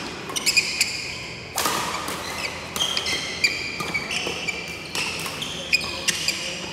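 Badminton rally on a wooden indoor court: sneakers squeaking in short high chirps as the players lunge and shift, with several sharp racket strikes on the shuttlecock and footfalls between them.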